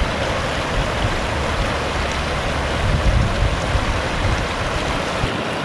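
Floodwater rushing steadily over a small dam and down a creek, with a deep rumble underneath that drops away just before the end.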